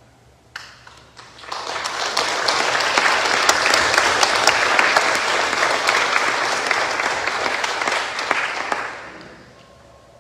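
Applause: one lone clap, then clapping that swells up about a second and a half in, holds steady, and dies away near the end.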